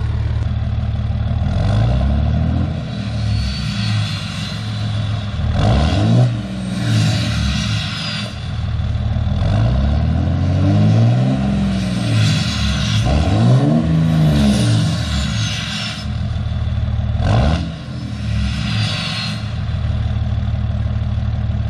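2003 Dodge Ram's 5.9 Cummins inline-six turbo diesel, fitted with a BD Howler VGT turbo, idling and revved about five times, each rev rising and falling back to idle. As the revs come down, the VGT exhaust brake kicks in, with a high whistle gliding down.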